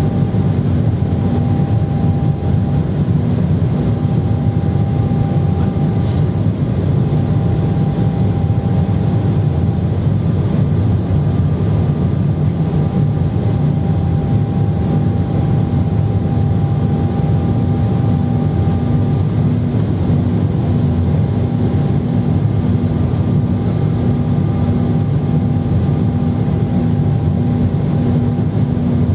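Steady cabin drone inside an Embraer E190 climbing after takeoff: its General Electric CF34-10E turbofan engines and the airflow over the fuselage make a low, even hum, with a steady tone and fainter higher whine tones above it.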